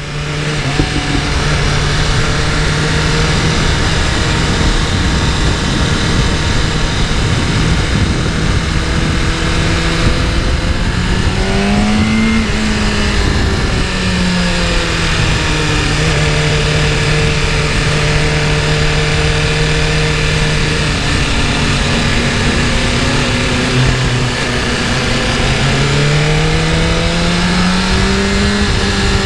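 2024 BMW S1000RR's inline-four engine running hard on track, with wind rushing past the microphone. The engine note holds steady, rises and falls again about twelve seconds in, drops a little past twenty seconds, then climbs steadily near the end as the bike accelerates.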